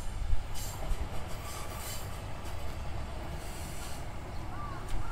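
Single-car diesel railcar of the Hitachinaka Seaside Railway approaching slowly along the track: a steady low engine and wheel rumble, with a few brief high hissing squeals from the wheels on the rails.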